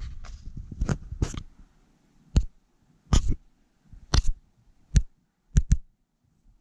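Paper pages of a printed manual being handled and lifted: a series of short, sharp crackles and taps at irregular intervals.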